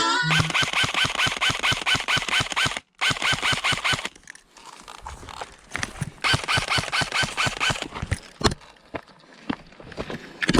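Airsoft electric gun firing full-auto bursts, a fast even rattle of shots over a whining motor and gearbox: one long burst of nearly three seconds, a short one just after, another about six seconds in, then a few scattered single clacks.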